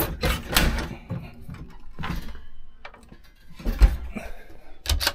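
Glass-fronted doors of a motorhome's built-in oven and grill being shut and handled, giving a string of clunks and knocks, the loudest a little before four seconds in and near the end.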